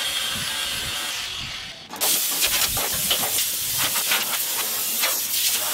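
Dry sandblaster, fed by a small air compressor, blasting paint off a steel hull plate: a steady hiss of air and grit. It stops for a moment just under two seconds in and starts again louder.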